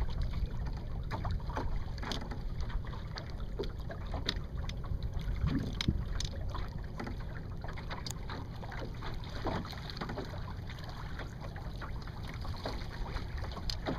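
Wind buffeting the microphone in a steady low rumble, with water lapping and splashing irregularly against a small sailboat's hull.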